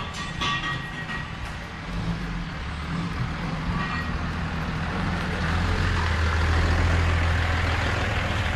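Cummins turbo-diesel in a Ram 2500 pickup idling: a steady low drone that grows louder over the second half.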